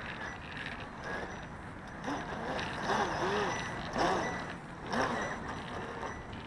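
Radio-controlled model boat's motor being blipped as the boat slows on the water: about five short whines that rise and fall in pitch, between about two and five seconds in, over a steady hiss.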